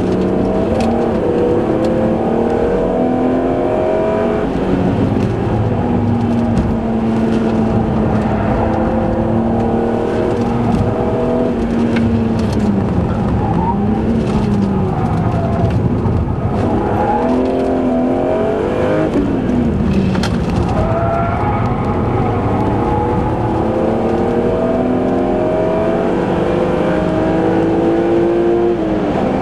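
BMW E36 M3 Evo's 3.2-litre straight-six driven hard on track, heard from inside the cabin. The engine note climbs through the gears with a drop at each upshift, holds steady for a few seconds, dips and rises again twice in the middle as the car slows for corners, then climbs through the gears again near the end.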